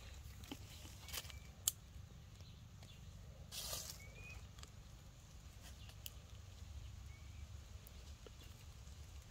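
Faint clicks and smacks of a baby monkey chewing fruit, with a sharp click just under two seconds in and a brief rustle of dry leaves about three and a half seconds in. A few faint, short high chirps come and go over a low rumble.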